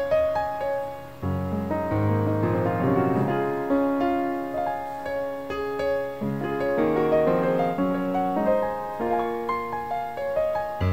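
Background piano music: a gentle melody of sustained notes, with low chords coming in about a second in.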